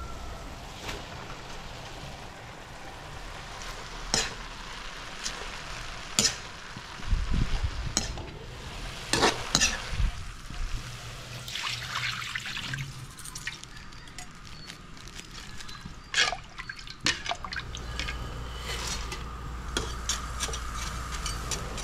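Stir-frying in a metal wok: a metal spatula scraping and knocking against the pan at irregular intervals over a light sizzle as chicken, vegetables and noodles are tossed.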